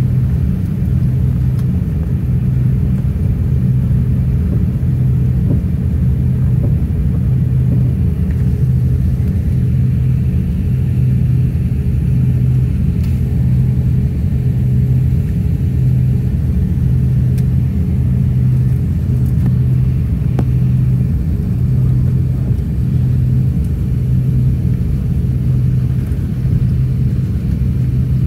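Jet airliner cabin noise while taxiing: the engines at low power and the airframe rolling make a steady low rumble. A deep hum in it throbs in a slow, even beat.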